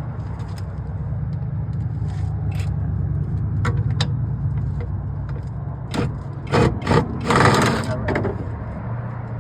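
A vehicle engine runs with a steady low hum, while metal parts click and scrape as a car's rear end is taken apart. A loud burst of scraping and rattling comes about two-thirds of the way in.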